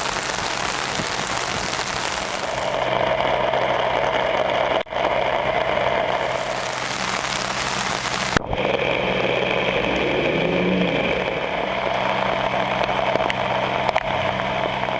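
Heavy rain falling on a flooded street, a steady hiss, with a low engine hum of vehicles beneath it. The sound breaks off abruptly for an instant twice, about five and eight and a half seconds in.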